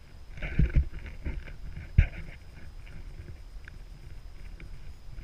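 Wind rumbling on the camera's microphone, with a few knocks of the camera being handled, the sharpest about two seconds in.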